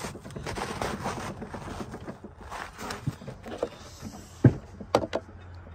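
Irregular scraping and knocking from work on a 7½-inch gauge railroad flatcar being coupled up, with two sharp clanks about four and a half and five seconds in.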